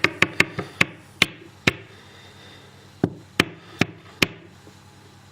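Sharp metal taps and clicks from the gutted Lockwood deadlock cylinder and its parts being worked apart to free stuck pins. There is a quick run of about six taps in the first two seconds, then four more about three seconds in.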